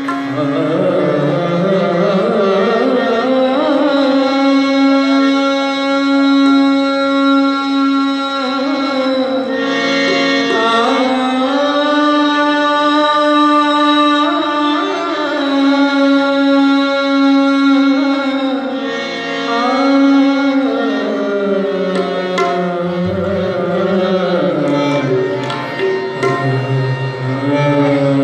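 Live tabla playing by two players over a loud, continuous melodic accompaniment of held notes that slide slowly in pitch above a steady low drone note.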